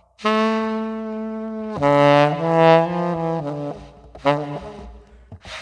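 Saxophone played softly in subtone. A long held low note runs to about two seconds in, then a second held note follows, then a few shorter, quieter notes close the phrase.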